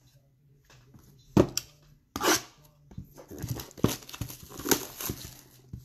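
Hands handling a cardboard trading-card box: a sharp knock about a second and a half in, then a few seconds of rustling and scraping cardboard with small clicks.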